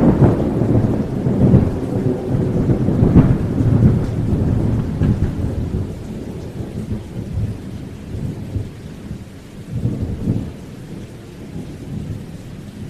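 Heavy rainstorm: rain with a deep, gusting rumble, loudest in the first few seconds and then dying down.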